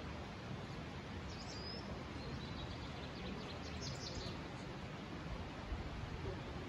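Steady outdoor background rush with small birds chirping high and briefly, about a second in and again around three to four seconds in.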